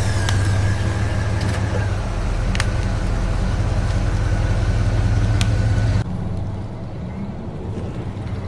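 RC truck engine idling steadily, with a few sharp clicks; the high-pitched part of the sound cuts off abruptly about six seconds in while the low hum carries on.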